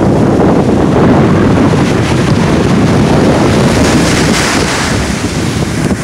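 Atlantic surf washing in over the shore in foam, with strong wind buffeting the microphone. The hiss of the water swells about four seconds in.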